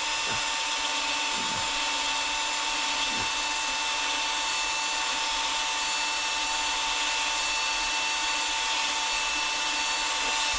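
Electric drill running steadily at a constant speed with a high, even whine. It is likely driving a hone or brush on a brake wheel cylinder.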